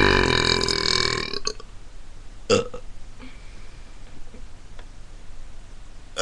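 A person burping: one long, loud burp of about a second and a half at the start, then two brief burps, about two and a half seconds in and at the end.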